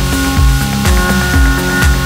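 Electronic dance music with a steady kick drum at about two beats a second under held synth tones.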